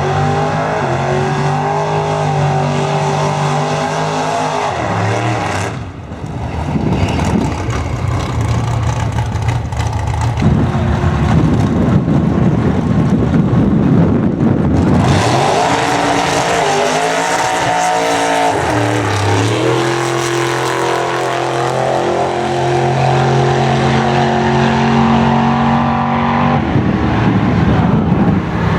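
Holden VP Commodore's engine run hard down the drag strip under full throttle. Its pitch holds steady, then steps several times as the automatic gearbox changes gear on its own.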